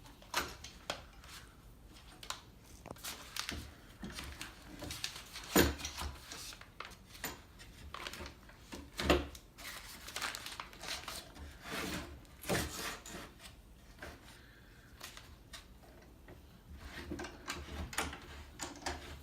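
Antique hand brace turning a wood auger bit through pallet wood: irregular scraping and rubbing of the bit cutting, with clicks and knocks, two of them louder about a third and halfway through.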